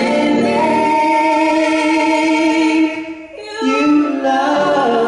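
A woman and a man singing a duet into handheld microphones, holding long notes, with a short break about three seconds in before the singing picks up again.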